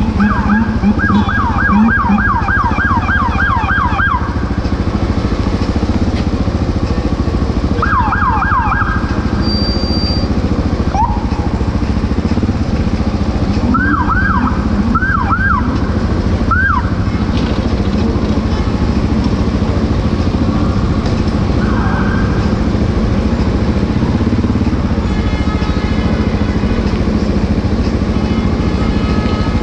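Emergency vehicle siren in yelp bursts, fast falling whoops about three or four a second, strongest in the first few seconds and returning in short spells later. A steady loud low rumble of vehicle traffic runs underneath.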